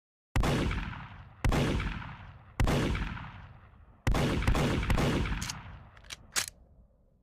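EAA Windicator .38 Special revolver firing a string of shots: three about a second apart, then a quicker cluster, with a few sharper cracks near the end. Each shot rings out and dies away slowly.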